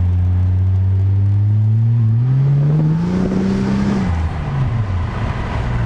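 Toyota 1JZ-GTE twin-turbo straight-six accelerating through a pod filter, heard from inside the cabin. The engine note climbs steadily in pitch for about four seconds, then falls away.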